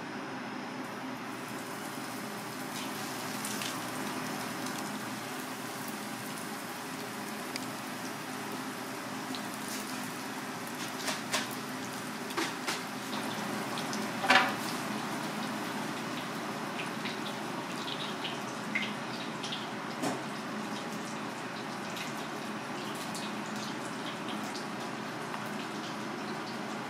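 Kitchen work sounds: a steady hiss of background noise with a few scattered knocks and clicks, the loudest about halfway through as a knife cuts raw fish on a plastic cutting board.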